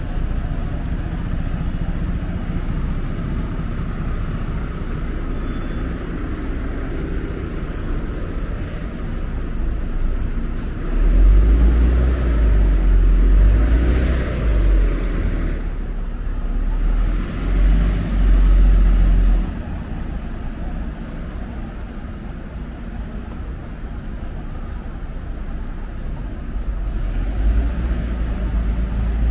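City street traffic: the steady hum of cars and other road vehicles. A much louder low rumble runs from about eleven seconds in for some eight seconds, with a swell in the middle of it as a vehicle passes close by.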